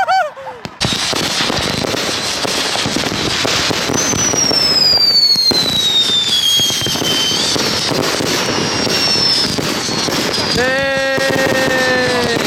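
Fireworks going off: dense, continuous crackling starting about a second in. A long whistle falling in pitch comes in about four seconds in, and a second, lower whistle starts near the end.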